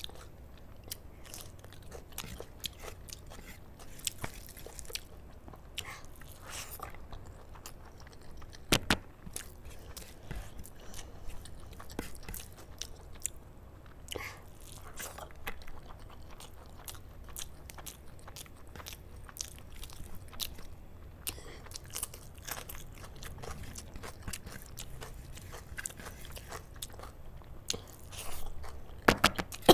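Close-miked chewing of big hand-fed mouthfuls of palak paneer mixed with rice: irregular mouth clicks and smacks, with a louder pair about nine seconds in and a louder cluster near the end.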